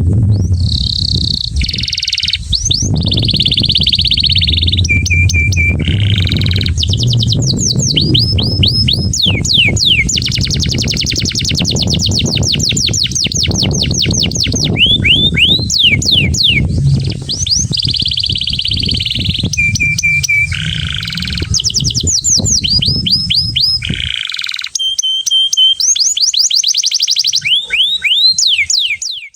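Male domestic canary singing a long, loud song of rapid trills, repeated rising sweeps and held whistled notes, with hardly a pause. This is the excited breeding song meant to bring females into condition for mating. A steady low rumble runs underneath and stops abruptly near the end.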